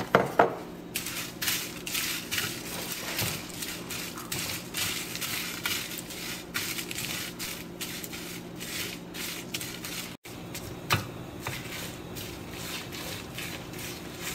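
Dried red chilies, garlic and shallots roasting in a nonstick pan, stirred with a wooden spatula: continuous dry crackling and rustling, with a few louder knocks against the pan, the loudest right at the start.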